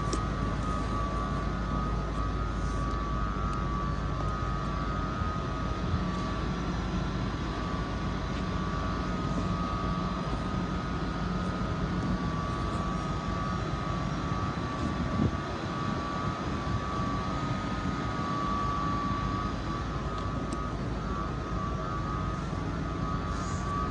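Class 755 passenger train standing at the platform, running steadily: a continuous hum with a steady high whine over it from the train's equipment.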